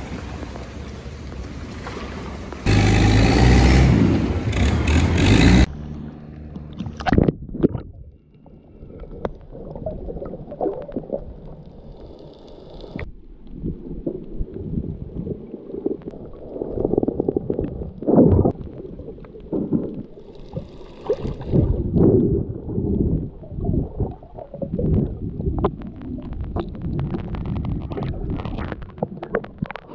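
Long-tail boat engine running with wind and water noise for the first few seconds. From about six seconds in, the sound turns muffled and underwater: water sloshing and gurgling around a submerged camera, with irregular bubbling as the snorkeler breathes out.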